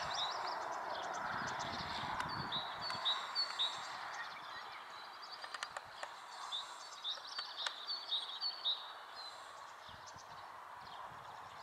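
Distant roar of a Boeing 747's four jet engines, fading steadily as the aircraft moves away. Over it a bird chirps repeatedly in quick short runs.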